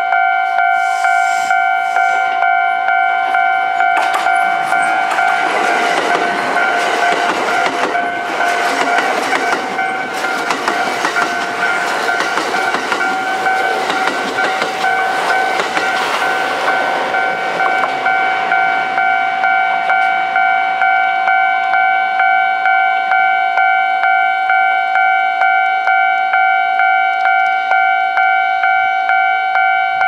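A Japanese level-crossing warning bell rings steadily in a regular repeating beat. From about 4 s to about 19 s a Kintetsu express of 5200-series and 9000-series electric cars passes close by, its wheels clattering over the rails and swelling up then fading. The bell keeps ringing after the train has gone.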